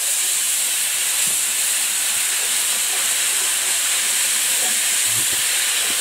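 Sweet-potato cooking water hitting a hot frying pan of oil, flour and chicken drippings, hissing and sizzling steadily as it flashes into steam: the pan being deglazed to make gravy.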